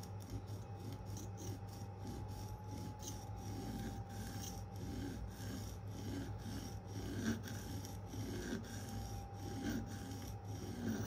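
Rhythmic scraping of a Spyderco Endura's K390 steel blade stroked across an Atoma 400 diamond plate, about one and a half strokes a second, grinding the bevel to extend the edge. A steady low hum runs underneath.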